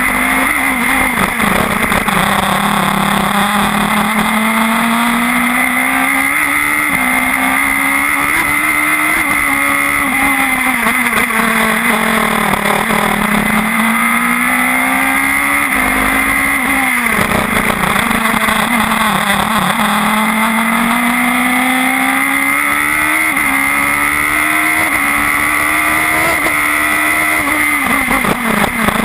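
Radical SR4 race car engine heard from the cockpit at speed, its pitch climbing steadily through each gear and dropping sharply at the shifts and braking points, about every four to five seconds.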